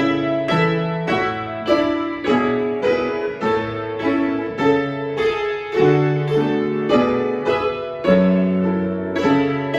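Solo piano playing a simple children's piece: a melody in evenly paced notes, about two a second, over low bass notes.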